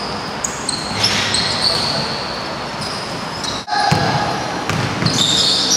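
Basketball game on a wooden gym court: a basketball bouncing and sneakers squeaking on the floor, in a large echoing hall. The sound drops out for an instant a little past halfway, then carries on.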